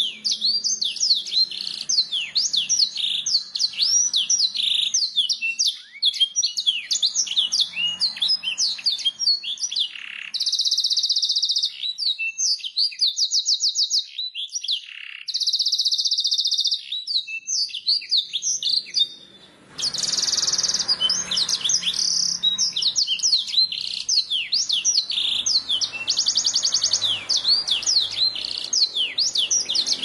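Domestic canary singing a long, fast song of rapid trills and sweeping chirps, broken by several stretches of very fast rolling trill; the song drops out briefly about two-thirds of the way through, then goes on.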